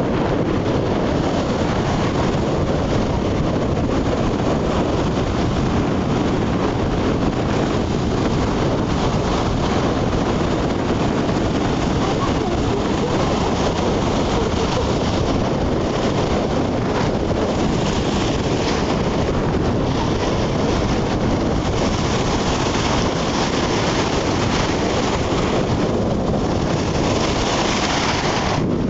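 Waves breaking and washing up a sandy shore, with strong wind rumbling on the microphone; the hiss of the surf swells now and then in the second half.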